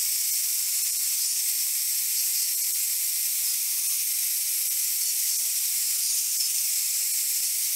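Angle grinder with a wire wheel running steadily under load, scouring paint off a cast-iron bench-vise casting. It gives a steady high hiss with a faint low motor hum underneath.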